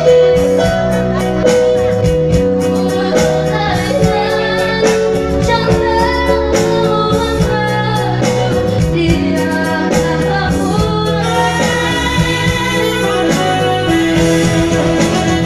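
A young woman singing a song through a microphone and PA speakers, with a band accompanying her. Her voice holds long, sliding notes over the steady backing music.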